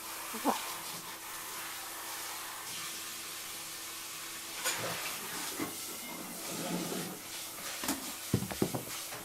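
Chihuahua snoring: low rasping breaths that become more audible in the second half, with a few short sharp sounds near the end, over a steady hiss.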